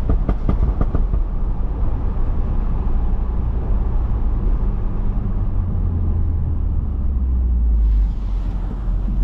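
A Stage 2 BMW F30 335i's turbocharged inline-six, with a catless downpipe, running steadily while the car is driven, with a deep low drone. There are a few sharp clicks in the first second, and the sound changes with a short dip about eight seconds in.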